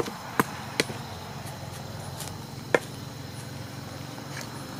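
A digging tool striking the ground in a few sharp, separate blows, the loudest about two and three-quarter seconds in, over a steady low hum.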